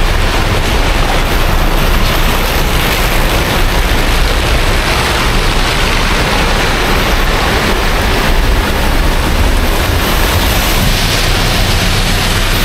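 Heavy rain falling, a loud steady hiss with no breaks.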